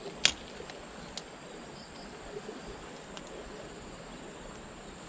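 Steady high-pitched insect drone over a faint outdoor hiss, with one sharp click about a third of a second in and a softer click about a second later.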